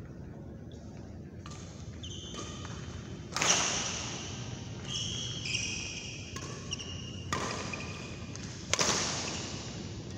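Badminton rally: rackets hitting the shuttlecock with sharp cracks that ring in a large hall, the two loudest about a third of the way in and near the end, with lighter hits between. Court shoes squeak on the mat in short high chirps through the middle.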